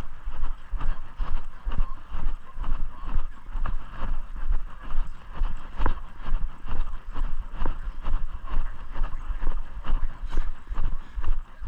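Footsteps at a steady walking pace, about two a second, with the thump and rustle of a handheld microphone jostling with each step.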